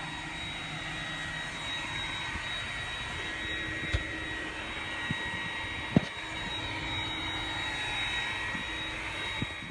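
iRobot Roomba 980 robot vacuum running, a steady whir with a thin high whine from its vacuum motor and brushes. Two short knocks sound about four and six seconds in, the second the louder.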